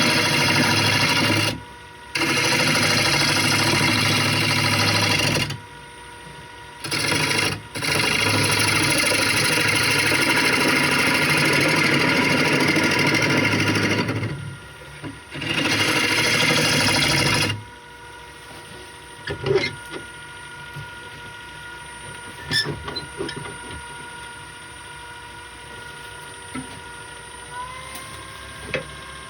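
Wood lathe running with a steady motor whine while a tool works the spinning wooden gear-knob blank, giving long spells of loud hissing cutting noise broken by short pauses. About two-thirds of the way through the cutting stops, leaving the motor whine with a few light clicks. Near the end the whine steps up in pitch, as when the lathe's speed is raised.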